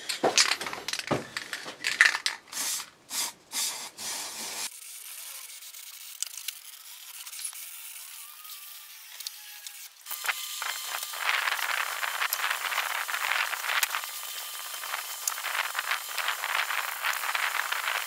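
Aerosol spray-paint can being shaken for the first few seconds, its mixing ball rattling. About ten seconds in, paint hisses out of the can in a steady spray.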